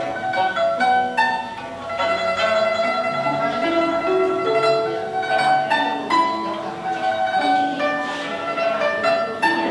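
Instrumental background music: a melody of plucked string notes over sustained accompaniment.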